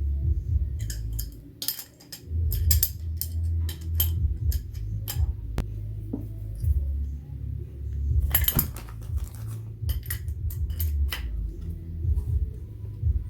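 Irregular sharp metallic clinks and clicks of hard objects being handled, over a steady low rumble.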